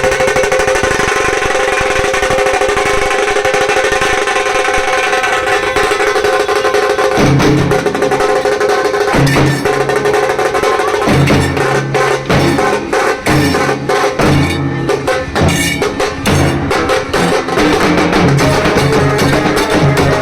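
Nasik dhol band playing: a sustained benjo melody over fast, rattling drumming. About seven seconds in, deep dhol beats join in short stop-start runs.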